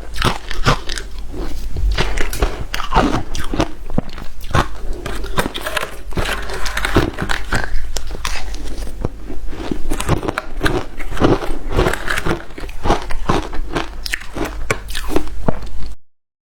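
Hard shaved ice with matcha and milk powder being bitten and chewed close to the microphone: rapid, irregular crunching that stops abruptly near the end.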